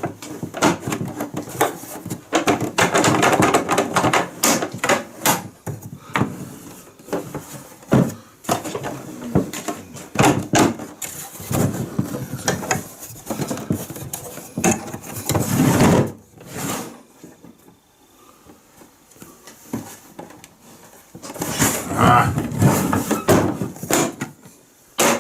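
Packaging of a power tool being handled and opened by hand: a busy run of rustling, scraping and knocks, a quieter pause about two-thirds through, then more handling near the end.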